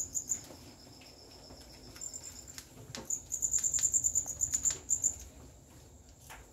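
Farmed crickets chirping: a high, rapidly pulsed trill in runs of a second or two with short pauses between, plus a few faint clicks.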